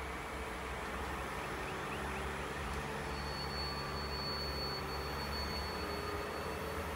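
Diesel engine of a 6Dg shunting locomotive running steadily with its work train. A thin, high steady whine joins about three seconds in.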